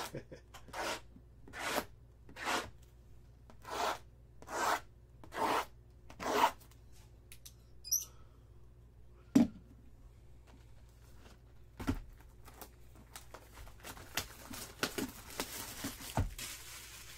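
Utility knife slicing the plastic shrink-wrap on sealed trading-card boxes: about eight short rasping strokes in a steady rhythm, then a sharp click. After that come a thump, light plastic crinkling and another thump as a box is moved.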